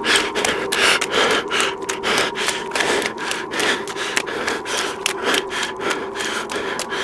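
Rapid, rhythmic rasping strokes, several a second, like sawing or rubbing, over a faint steady two-tone hum.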